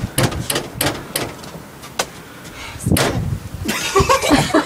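A quick run of sharp knocks and clatters at a door, about three a second at first and more spread out after two seconds.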